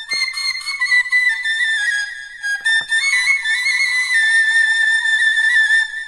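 Bamboo flute (bansuri) playing a solo melody of high notes moving in small steps, with held tones and no accompaniment.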